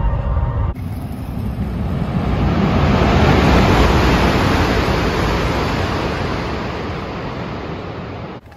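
A high-speed train running past a station platform: a loud, even rushing roar that swells over a few seconds and then slowly dies away. Just before it, a short stretch of the low rumble inside a moving train.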